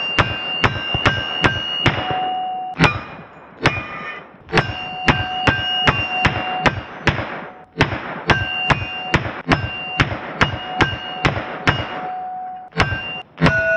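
Kel-Tec CMR-30 .22 Magnum semi-automatic carbine fired in rapid strings, several shots a second with short pauses between strings. Most shots are answered by the ringing clang of hanging steel plate targets, the sign of hits.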